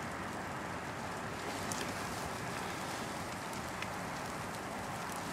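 Steady outdoor background noise, an even hiss with a few faint ticks, and no siren wail standing out.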